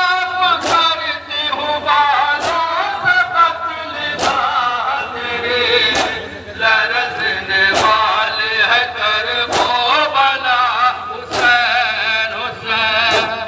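Men chanting a noha (Shia lament) together, with the crowd beating their chests in unison in matam, one sharp strike about every two seconds.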